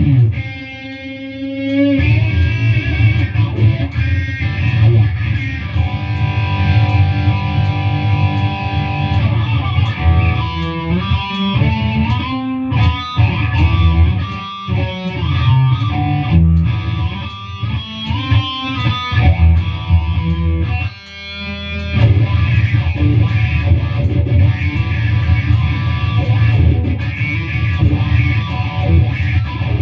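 Stratocaster-style electric guitar played over a backing track with bass and drums. The low end drops out for the first two seconds and briefly again about 21 seconds in, leaving the guitar line on its own before the full band comes back.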